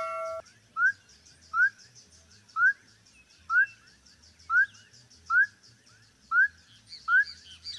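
A frog giving its mating call: short rising whoops repeated about once a second over a fast, high trill in the background. A notification-bell chime rings and dies away in the first half second.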